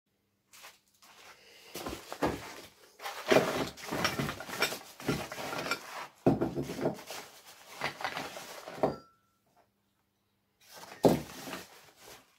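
Paper wrapping crinkling and rustling as it is pulled open by hand, with a few sharp knocks of metal hole saws being handled and set down on the wooden bench. The crinkling stops briefly about two-thirds of the way in, then one more short burst follows.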